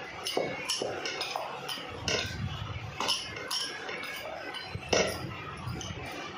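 Wooden rolling pin rolling out dough on a round wooden board, with irregular clacks and knocks as the pin is pushed and lifted and the round is turned; the loudest knock comes about five seconds in.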